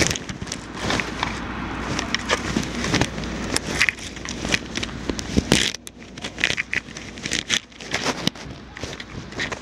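Handling noise from a camera being moved and set up: irregular clicks, knocks and rubbing. Under it a low steady rumble cuts off suddenly a little over halfway through.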